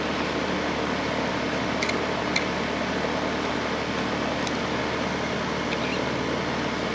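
A steady machine hum with an even rushing noise, unchanging throughout, and a couple of faint clicks about two seconds in.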